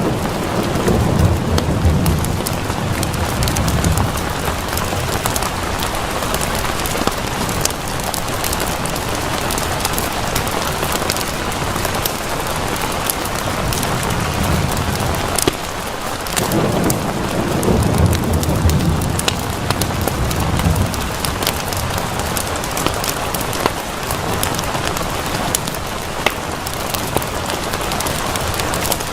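Steady rain falling, with low rolling thunder rumbling twice for several seconds each: at the start and again about halfway through. Scattered sharp clicks sound over the rain.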